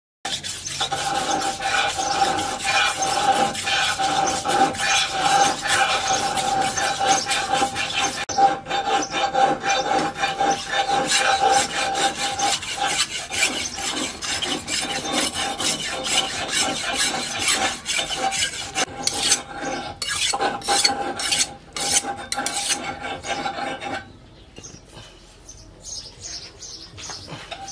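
Steel knife blade rubbed rapidly back and forth by hand on a sharpening stone: a continuous rasping scrape with a steady high tone running through it. Near the end the strokes stop and it goes much quieter.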